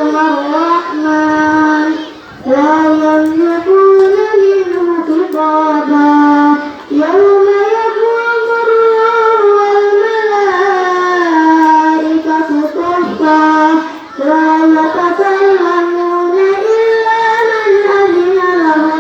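A young girl chanting Quran recitation in the melodic tilawah style: long, ornamented phrases that glide up and down in pitch, with short breaths about two, seven and fourteen seconds in.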